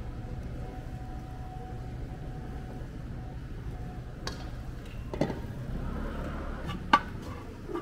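Steady low background rumble with three sharp clanks in the second half, the last the loudest: a rice paddle and metal pot knocking as cooked rice is scooped out of a rice cooker.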